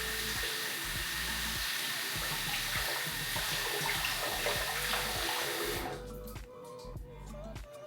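A tap running into a sink with a steady hiss that cuts off about six seconds in, over background music.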